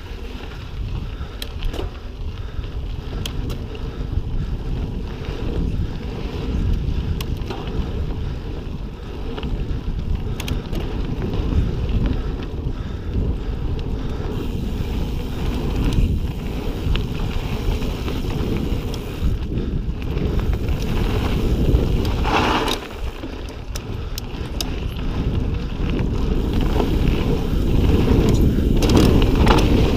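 Ibis Ripley mountain bike descending a dirt singletrack at speed: wind buffeting the microphone over the rumble of knobby tyres on packed dirt and rock, with scattered clicks and rattles from the trail. It gets louder near the end as the speed builds.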